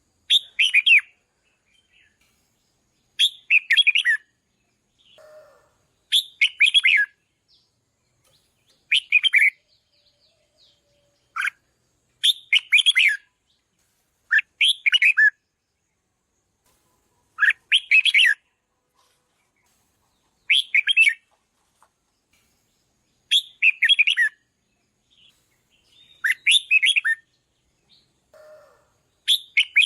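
Red-whiskered bulbul singing: about a dozen short, bright warbled phrases, each about a second long, repeated every two to three seconds.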